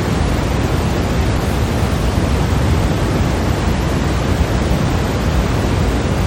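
Steady white noise: a constant, unchanging hiss, heavier in the low end, with no variation or events.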